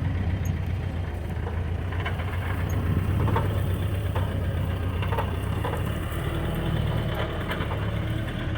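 Old Jeep's engine running at low speed over rough ground, a steady low drone with scattered knocks and rattles.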